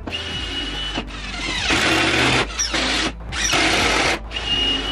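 Background music mixed with a power drill running in several short spurts, with brief stops between them.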